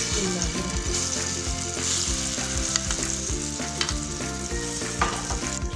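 Wet omelette mixture of egg, chopped vegetables and grated potato sizzling and frying as it hits hot ghee in a steel pan. The hiss is loudest in the first few seconds.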